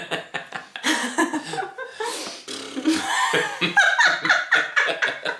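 A woman laughing hard in quick repeated bursts.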